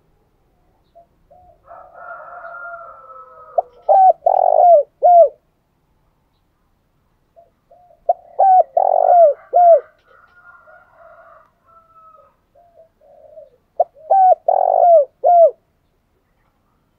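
Spotted dove cooing: three phrases of a few short, low, bending coo notes, each with one longer note, spaced about five seconds apart. Fainter, rougher sounds come before each phrase.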